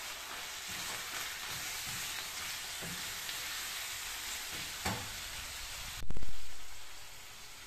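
Minced meat and onions sizzling in a frying pan as tomato paste is stirred in with a wooden spoon, the spoon knocking softly against the pan. About six seconds in, a loud low thump, the loudest sound here, after which the sizzle goes on more quietly.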